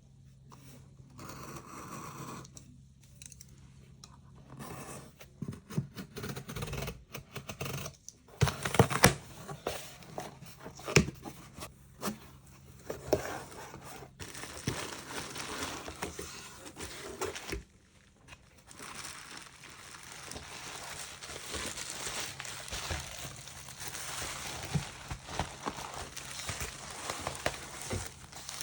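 Packaging being handled and opened: paper and plastic wrapping torn and crinkled, with scattered taps and clicks. Past the middle it turns into near-continuous crinkling.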